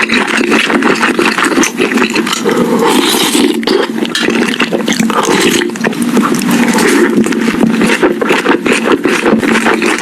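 Close-miked chewing and crunching of crispy fried chicken: a dense, continuous run of crackly crunches and mouth sounds.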